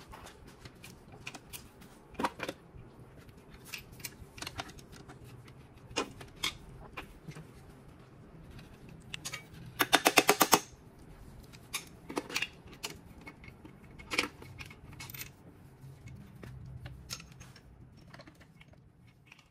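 Ratchet wrench clicking in one fast run lasting under a second, midway, as the number 4 connecting rod cap bolts are undone on a Nissan SR20DET engine; scattered light metal clinks and knocks of tools and parts come before and after it.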